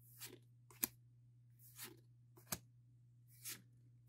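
Pokémon trading cards being flipped through one by one in the hand: three soft sliding swishes of card against card, two of them followed by a light, sharp snap, over a faint steady hum.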